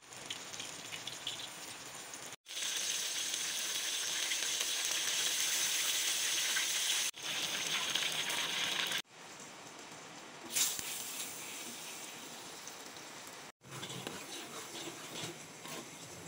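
Chicken pieces deep-frying in hot oil in a steel wok: a steady sizzle in several short clips cut together, loudest in the middle, with one sharp clink a little past halfway. Near the end, butter sizzling as it melts in the wok.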